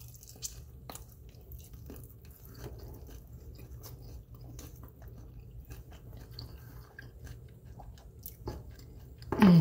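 Close-up chewing and biting on honey barbecue chicken wings: soft, wet mouth clicks and small crunches in an irregular run. A short vocal sound comes near the end.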